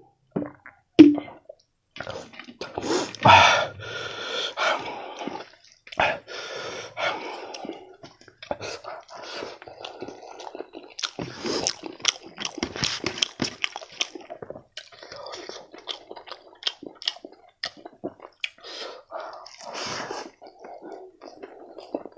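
Close-miked eating: a person chewing and lip-smacking through a meal of fried rice, fish and chicken, with a steady run of wet clicks and squelches.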